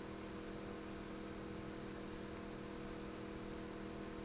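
Steady electrical hum with a faint hiss underneath, unchanging throughout, with no handling or tool sounds.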